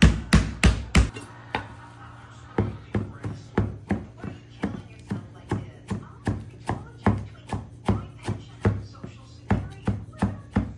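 Meat mallet pounding chicken breasts flat in a plastic zipper bag on a wooden cutting board, about three heavy blows a second, stopping about a second in. Then a chef's knife chopping parsley on the wooden board, lighter knocks about three a second, over background music.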